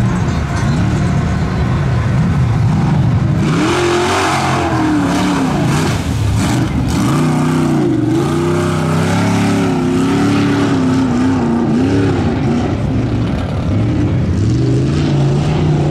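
Lifted one-ton mud truck's engine revving hard, its pitch rising and falling again and again as the driver works the throttle over the track. A loud rushing noise joins in from about three and a half seconds in for several seconds.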